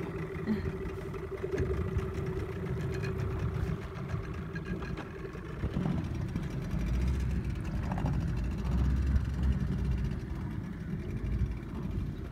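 Outboard motor of a small lake boat running steadily, with a low rumble swelling from about seven to ten seconds in.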